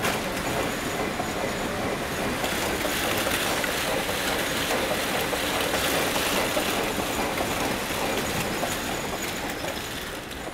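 Powered garabō (Japanese gara-spinning machine) running: a dense, steady rattling clatter from its many rotating cotton-filled cylinders and the spinning pieces beneath them, the 'gara-gara' sound the machine is named for. The clatter fades toward the end.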